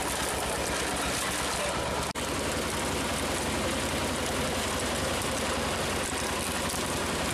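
Road roller's engine running steadily with an even, pulsing chug. The sound cuts out for an instant about two seconds in.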